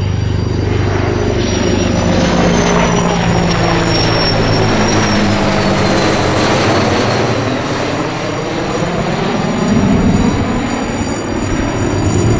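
An F-16 jet fighter and an AH-64 Apache helicopter flying past low together. The jet engine's roar swells in, and its high whine falls in pitch as the fighter passes, over the steady low drone of the helicopter.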